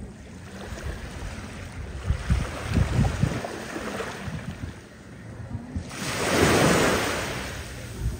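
Sea waves washing onto the shore, one wave swelling up loudest a little past halfway and then fading, with wind buffeting the microphone in gusts.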